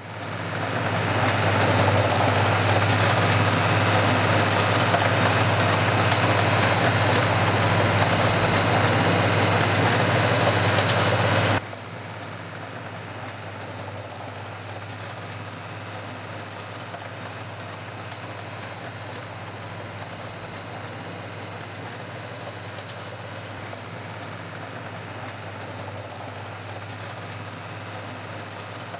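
An engine running steadily, loud and dense for the first dozen seconds after fading in, then cutting abruptly to a much quieter steady engine hum.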